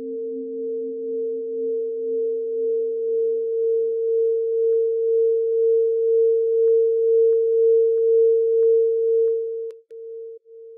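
Electronic sine-tone drone. A lower tone fades out about four seconds in, while a higher steady tone swells with a slow pulsing, then breaks into short stutters and cuts off near the end.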